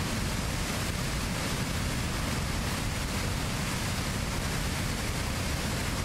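Wide waterfall in flood, heavy muddy water pouring over a broad ledge into a churning pool: a steady, unbroken rush of falling water with a deep low rumble beneath it.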